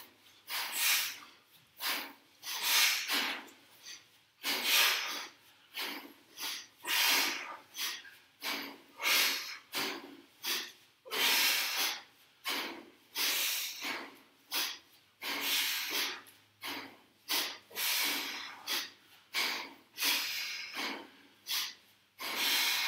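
Hard, rhythmic breathing of people swinging kettlebells: a sharp, hissing breath about once or twice a second.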